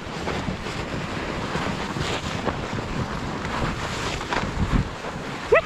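Butt sled sliding fast over snow: a steady rushing hiss and scrape of snow under the sled, with wind buffeting the microphone. A short cry of a voice right at the end.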